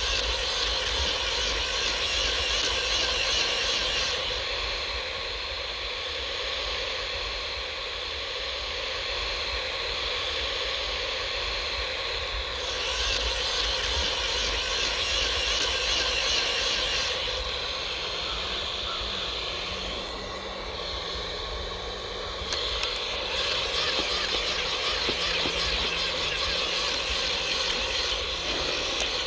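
Outdoor ambience: a steady low wind rumble under a high, hissing buzz that swells and fades three times. Faint low tones step in pitch in the second half.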